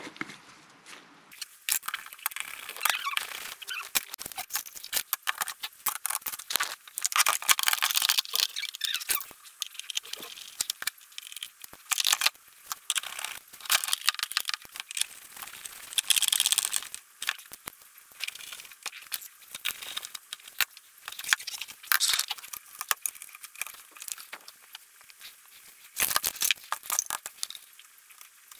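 Hands working on a metal electronics case with a screwdriver: irregular clicks, small metallic rattles and rustling as parts are fitted and screwed in.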